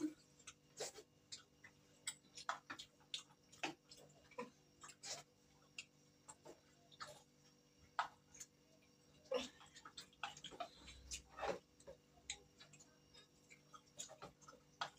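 Faint, irregular clicks and taps of people eating momos by hand from steel plates, with a spoon knocking in a steel pot, a few soft ticks a second.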